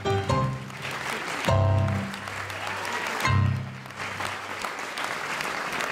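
Show music closing on three loud held chords, while an audience's applause builds underneath from about a second in and carries on after the music ends.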